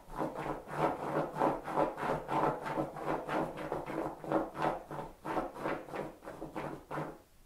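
A Borzoi puppy digging at a shaggy rug, its front paws scraping the pile in a quick, even run of about three or four strokes a second. The scraping stops suddenly near the end.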